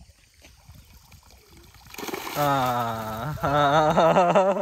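Water dripping and splashing faintly as a cast net is drawn up out of a pond. About two seconds in, a man's voice calls out loudly in two long, drawn-out stretches.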